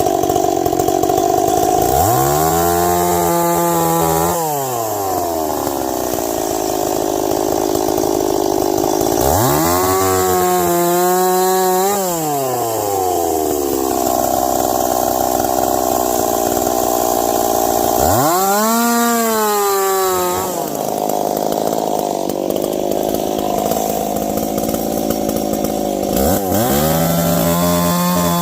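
Ported Stihl 026 two-stroke chainsaw running at high revs through ash wood. About every eight seconds the throttle is let off, and it drops to idle for a couple of seconds before revving back up; the last drop starts near the end.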